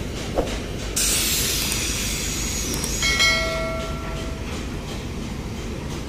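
Sound effects of a subscribe-button animation: a click, a hissing whoosh about a second in that fades away, and a ringing bell-like ding around three seconds in, over a steady low rumble.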